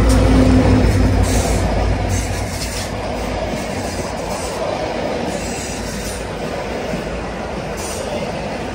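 V/Line diesel locomotive's engine droning loudly as it passes close by, fading within about two seconds. Then comes the steady rumble of carriages rolling past on the rails, with short high-pitched wheel squeals now and then.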